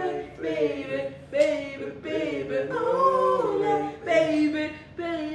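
Voices singing a cappella, with no instruments: drawn-out notes that bend up and down in pitch, in several phrases broken by short pauses.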